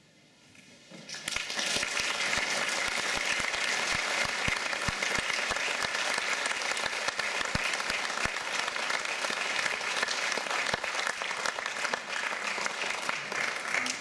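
Audience applauding, a dense steady clapping that swells in about a second in and breaks off near the end.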